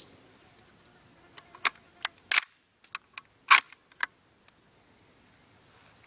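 .303 bolt-action rifle's bolt being worked by hand: a string of sharp metal clicks and clacks over about three seconds, the loudest a little over two and about three and a half seconds in.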